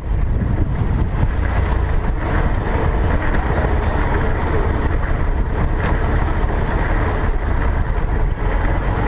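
Steady low rumble of a classic car's engine running as the car rolls forward at walking pace.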